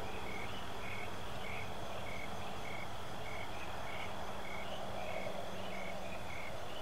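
Night-time insects chirping, a short high chirp repeating evenly about twice a second over a steady background chorus; the bullfrog is not heard calling loudly.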